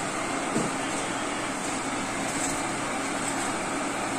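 Steady background noise, like the hiss of a fan or distant machinery, with a faint low hum and a soft thump about half a second in.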